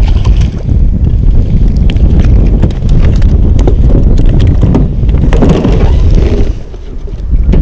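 Wind buffeting the microphone in a loud, steady rumble, with scattered small knocks and clicks over it.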